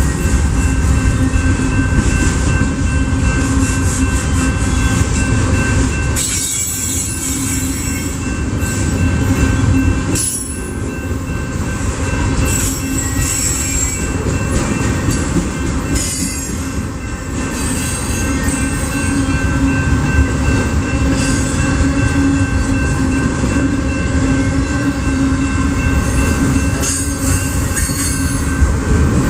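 BNSF freight train rolling past, a loud, continuous rumble of wheels on rail with steady high-pitched wheel squeal through the whole passage.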